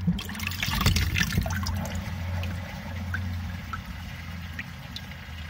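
Water draining from a filled sink down an open basket-strainer plug hole, trickling and gurgling steadily. There are a few sharp clicks and knocks in the first second or so as the plug is pulled.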